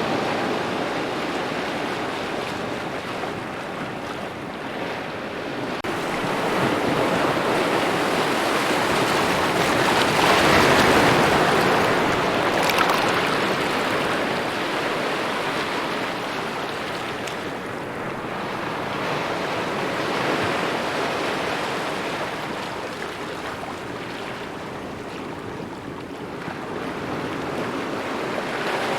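Small ocean waves lapping and washing on the shore, a steady wash of water that swells and eases every few seconds, loudest about ten seconds in.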